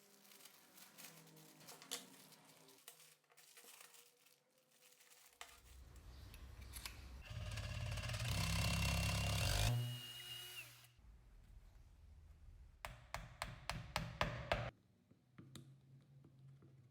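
A small power tool runs for about five seconds, building up to a steady high whine. It then drops to a lower hum with a quick run of clicks near the end.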